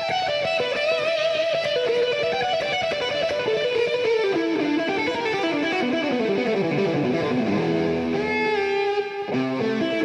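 Background music led by a guitar playing fast runs of notes, with a descending run about halfway through and a brief break near the end.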